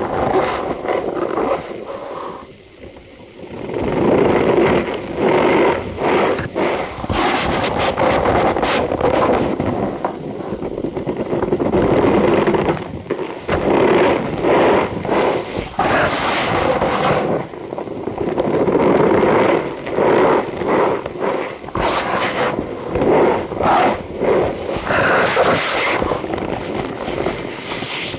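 Cornstarch powder being squeezed and crushed by hand, giving a continuous run of squeaky, crunchy creaks with a short lull about three seconds in.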